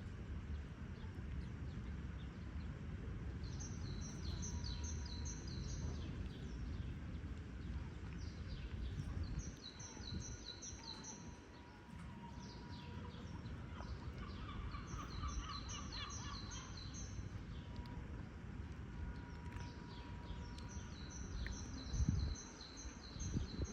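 A small songbird singing the same phrase of quick, high, repeated notes about four times, a few seconds apart, over a steady low outdoor rumble.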